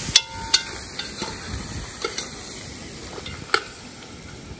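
Goat meat for curry goat sizzling in a pot, the sizzle fading gradually, with five or so sharp metal clinks of a spoon against the pot as it is stirred.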